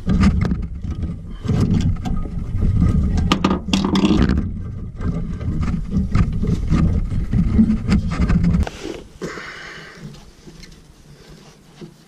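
Rubbing, scraping and knocking as a screwdriver and hands work loose the TXV sensing-bulb clamp among the copper lines, over a heavy low rumble. It all drops away sharply about 9 seconds in, leaving a much quieter stretch.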